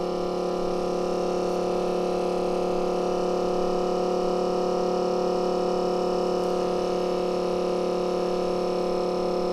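Steady electrical hum made of several even, unchanging tones, with a light hiss above it.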